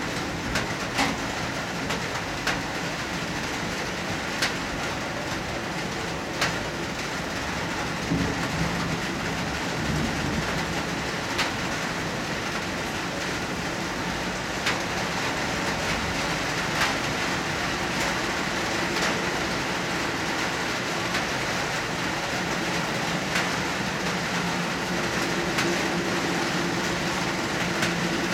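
Heavy rain pouring steadily, with sharp ticks of drops striking close by every second or two. A faint low hum runs underneath, a little stronger near the end.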